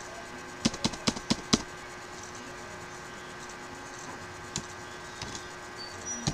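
Computer keyboard keystrokes: a quick run of about six keys struck about a second in, then a few single keystrokes further on, over a faint steady hum.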